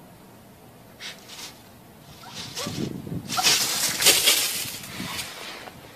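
Gravel crunching and scattering under a small dog's feet as it scrambles off across a gravel yard, building about two seconds in, loudest about halfway through, then fading.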